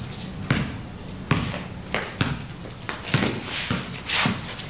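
Basketball bouncing on a concrete court, dribbled in a run of sharp, unevenly spaced thuds.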